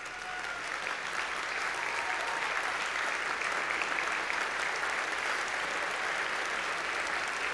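A large audience applauding, building up over the first second and then holding steady.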